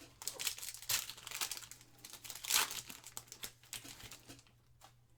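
Trading-card pack wrapper crinkling as it is handled and torn open, a run of rustles loudest about one and two and a half seconds in, dying away near the end.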